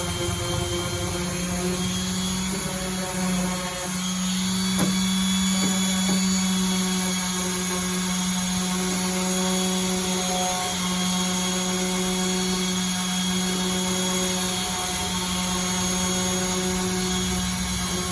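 Makita M9202M single-speed electric orbital sander running steadily while sanding, a constant motor hum and whine with a hiss of abrasive over it. A few light knocks come about five to six seconds in.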